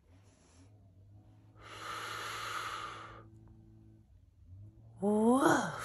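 A person's long, breathy exhale lasting about a second and a half, a little under two seconds in. Near the end comes a short voiced "woof" in a human voice, its pitch rising then falling.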